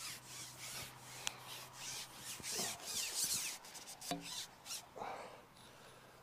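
Repeated rubbing and scraping as a long carbon fishing pole is pulled back by hand, its length sliding against hands and clothing while a hooked tench is played, with a single sharp click about a second in. The scraping dies away about five seconds in.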